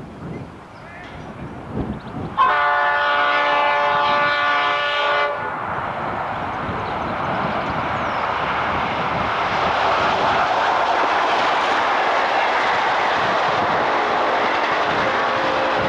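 Diesel locomotive horn sounds one blast of about three seconds, then a diesel-hauled train passes close by: a loud, steady noise of the engines working and the wheels on the rails.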